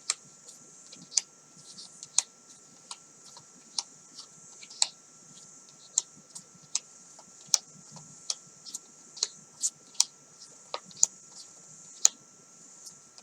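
Oracle cards being handled and turned over one by one: irregular sharp clicks and taps, roughly one or two a second, over a steady hiss.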